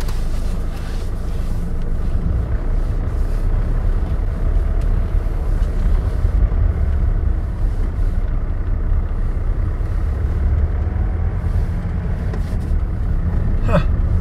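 A Mercedes-Benz car's engine and tyre noise heard from inside the cabin while driving: a steady low rumble.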